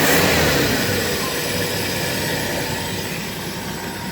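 1974 Ford F-250's 4.9-litre straight-six, cold-started in the snow, dropping off its choke high idle to a lower idle about half a second in, then idling steadily.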